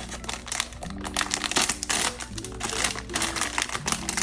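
Rapid, irregular crinkling and crackling of plastic packaging being handled and torn open to unwrap a blind-box plush pendant doll, over soft background music with sustained low notes.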